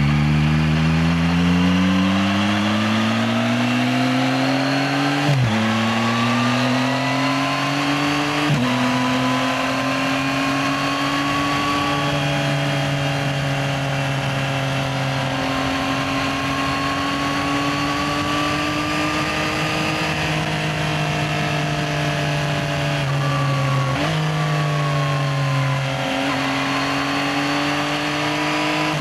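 Yamaha XSR900's inline three-cylinder engine under way: it pulls up through the revs and upshifts twice early on, then cruises at a steady engine speed, with more gear changes near the end.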